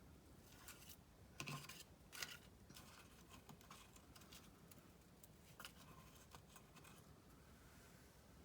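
Near silence with a few faint rustles and clicks of paper and craft materials being handled, about a second and a half, two seconds and five and a half seconds in.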